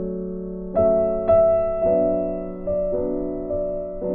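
Background piano music: soft held chords, with a new chord struck about every half second to second.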